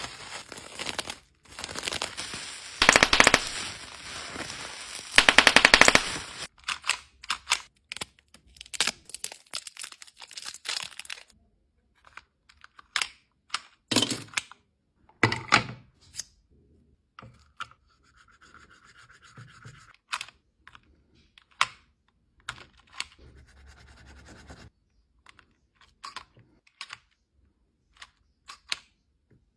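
A run of sharp clicks, taps and scratches from small objects being handled, with two louder rasping bursts in the first few seconds.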